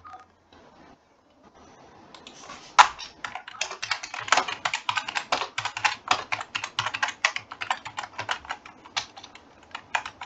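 Typing on a computer keyboard: a quick run of key clicks that starts about two seconds in and carries on, with a few last keystrokes near the end.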